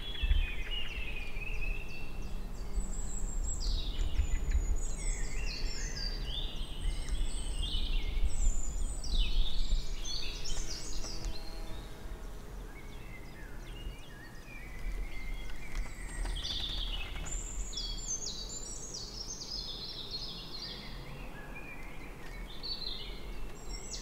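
Several songbirds singing, with overlapping phrases, trills and short glides throughout, over a constant low rumble.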